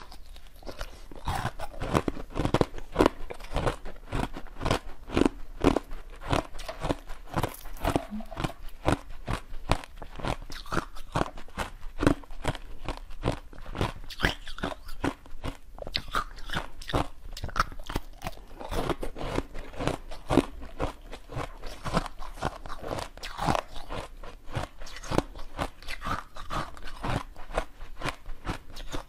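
Teeth biting and chewing through frozen ice discs set with basil seeds: a run of crisp, cracking crunches, several a second.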